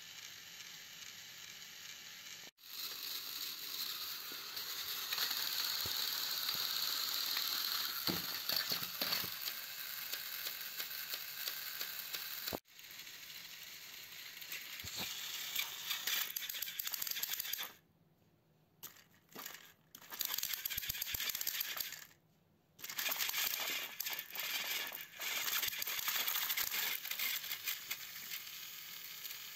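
Battery-powered Plarail toy locomotives running on plastic track: a steady whirring rattle of small motors and plastic gears, with clicking wheels. It breaks off abruptly a few times.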